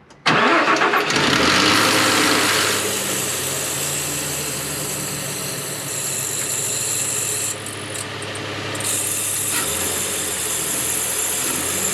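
2006 Nissan Xterra's 4.0-litre V6 starting about a quarter second in, then idling steadily with a high, constant whine from the belt drive. It sounds worse than the original belt squeal: the newly fitted idler pulley's bearing seizes when the belt is tightened.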